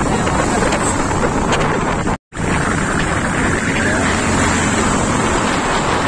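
Wind rushing over the microphone of a moving motorcycle, with the bike's engine and road noise beneath it; the sound cuts out completely for a moment about two seconds in.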